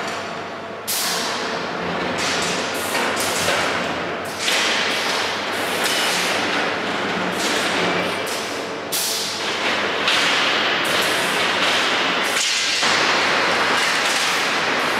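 Eurobend Syntheton 20x4 automatic steel-bar bending machine running a bending cycle, its heads working the bars. Several sudden loud rushes of noise start one after another over a steady machine din.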